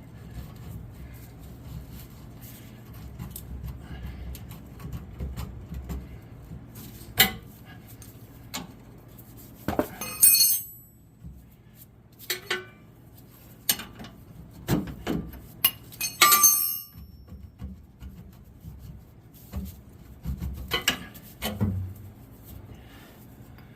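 Hammer blows on a truck's rear shock absorber and its steel mount, trying to knock the shock off: about a dozen irregular sharp metallic clanks and clinks, a few ringing briefly.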